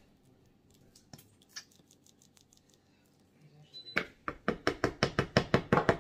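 A nearly empty plastic bottle of barbecue sauce is shaken upside down to get the last sauce out. After a few faint clicks, a rapid run of sharp knocks starts about four seconds in, about five a second.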